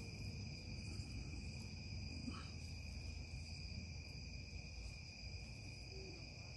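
Crickets trilling steadily in a continuous, unbroken chorus over a low, steady rumble.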